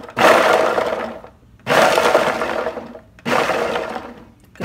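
Ninja countertop blender pulsed in short bursts, its blades chopping whole garlic cloves, with the pieces rattling against the plastic jar. Three pulses of about a second each, starting sharply and fading, about one and a half seconds apart.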